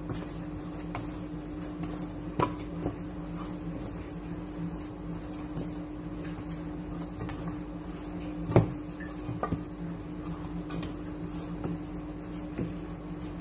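Dough being kneaded by hand in a stainless steel bowl, with a few knocks of hand and dough against the metal, the loudest about two-thirds of the way through, over a steady low hum.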